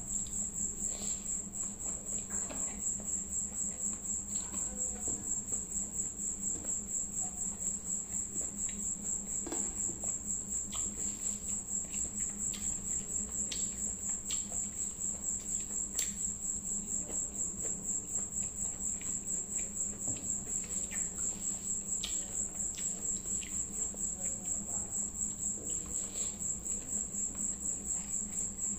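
A chirping insect: a high-pitched trill pulsing rapidly and evenly. Under it run a low steady hum and soft, scattered wet clicks and smacks from rice and gravy being mixed by hand and eaten.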